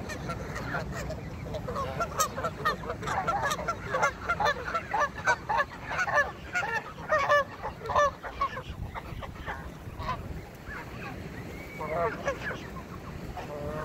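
A flock of Canada geese honking: many short calls overlapping in a dense burst of honks for several seconds, then only a few scattered honks near the end.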